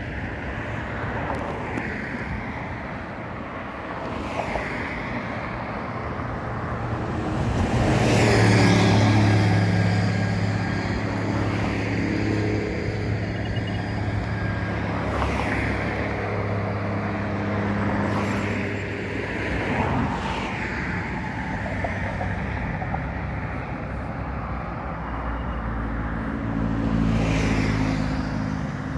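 Road traffic: motor vehicles passing one after another. A steady engine drone swells about eight seconds in and holds for around ten seconds, and another vehicle passes near the end.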